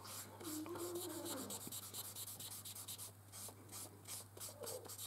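Felt tip of a Kreul transfer marker rubbing back and forth on the back of a laser printout. It makes faint, repeated scratchy strokes on paper as it soaks the print with transfer medium.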